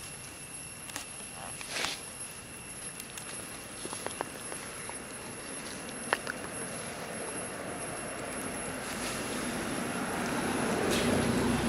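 Scattered small clicks and rustles in dry leaf litter, then a rumbling vehicle noise that swells over the last few seconds as it approaches.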